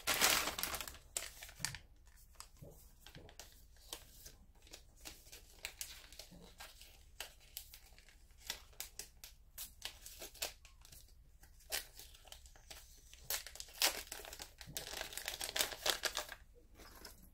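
A small bag or packaging crinkling and rustling as it is opened by hand to get out a small item, with scattered light clicks in between. A short rustle comes at the start, and the rustling grows denser about three-quarters of the way through.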